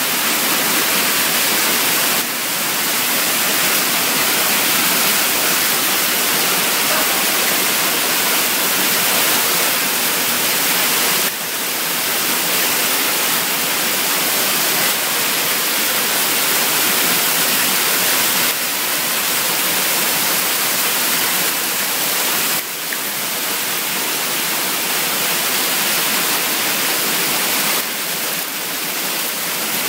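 Heavy rain with hail coming down hard, a loud, steady rush of water that holds without a break.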